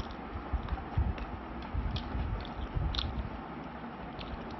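Close-up chewing of a mouthful of rice and chicken curry, with scattered wet mouth clicks and smacks. The loudest click comes about three seconds in.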